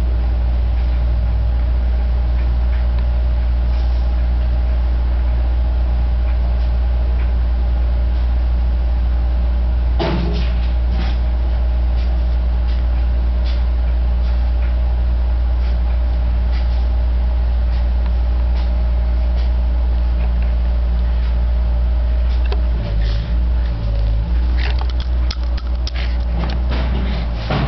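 A steady low mechanical hum with a few constant tones in it, with scattered clicks and knocks about ten seconds in and more of them near the end.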